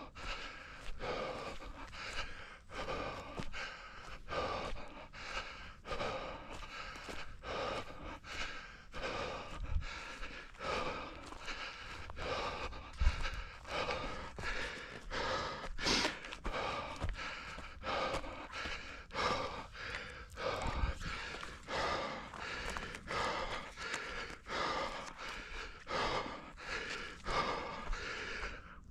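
A running orienteer breathing hard in a steady rhythm, a little under two breaths a second, with occasional footfalls thudding underneath.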